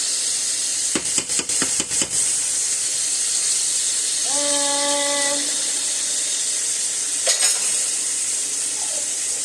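Steaks frying in butter in a pan, with a steady sizzle. A quick run of spoon taps against the pan about a second in, and one more near the end.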